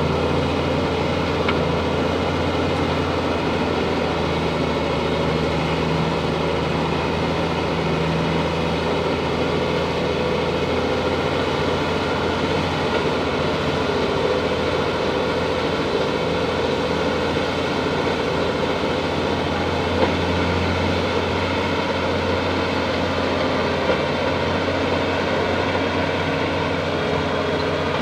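Bulldozer's diesel engine running steadily under work, with a couple of brief sharp knocks partway through.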